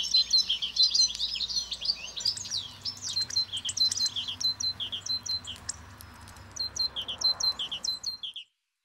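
Small songbirds chirping and calling, many short, sharp high notes overlapping in quick runs. The sound stops abruptly near the end.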